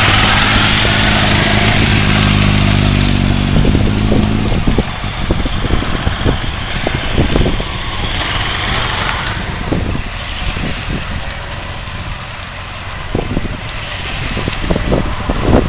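Motorcycle engine running at low revs as the bike rides slowly past close by through a cone slalom, its steady note dropping away after about four seconds. After that, fainter motorcycle engines and low buffeting of wind on the microphone, growing louder again near the end as another bike approaches.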